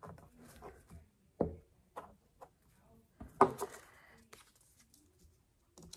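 Construction paper and a glue stick handled on a tabletop: a few soft knocks and taps with light paper rustling as cut-out pieces are picked up and pressed down.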